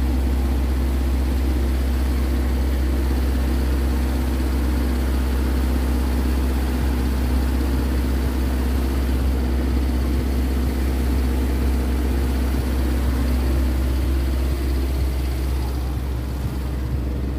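Steady low rumble of street traffic and engines with a constant hum, unchanging throughout.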